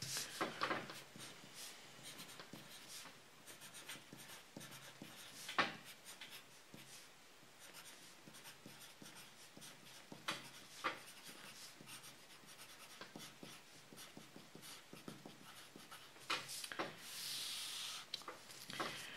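Pencil writing on paper: faint scratching strokes with a few sharper taps, and one longer stroke near the end as the heading is underlined.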